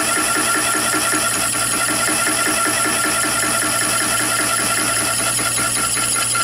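Chinese mini lathe running with its spindle at about 315 rpm, a steady motor and gear whine with a fast, even pulse, as a 2 mm HSS slitting saw in the chuck cuts a cross slot in a brass bar.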